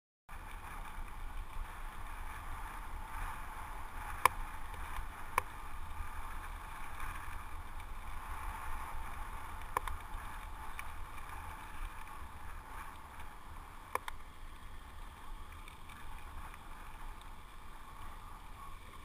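Mountain bike rolling over a gravel path, heard close up: a steady rush of tyre and riding noise with a low rumble and a few sharp clicks from the bike, the loudest about four seconds in.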